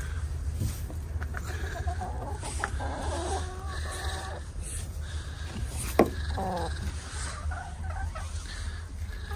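Several hens clucking and calling in short, scattered phrases, with a single sharp knock about six seconds in.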